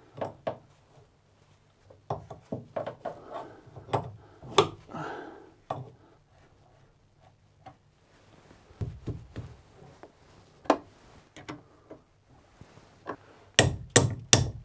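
Steel wrenches clinking and scraping on the rusty steel arm bolted to a sailboat's rudder stock as gloved hands work at its fittings: scattered sharp metallic clicks and knocks with a few dull thumps, then a quick run of knocks near the end.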